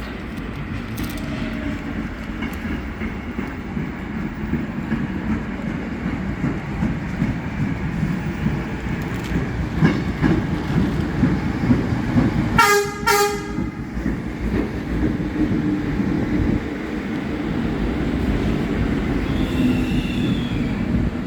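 New York City subway Q train running through the station with a continuous rumble of wheels on track. About twelve seconds in it gives a horn salute of two short blasts in quick succession.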